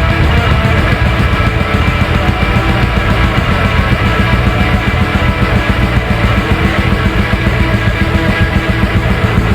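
Loud heavy metal music, dense and continuous, with a heavy bass and a fast, even pulse.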